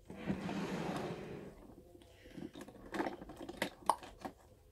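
Small makeup items being handled: a rustle lasting about two seconds, then a run of light clicks and taps.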